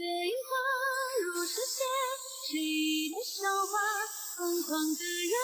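Background music: a high voice singing a stepping melody with vibrato on the held notes.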